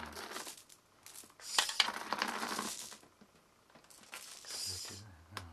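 Marbles clattering and clinking against each other, loudest in a burst of quick clicks about one and a half seconds in, with a softer rushing sound near the end.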